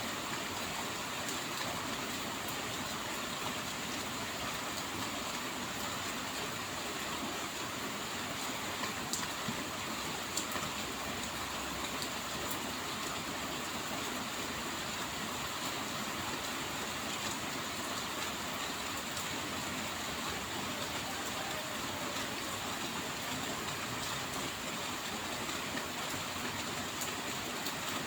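Steady rain falling, an even continuous hiss with a few faint drop ticks about a third of the way in.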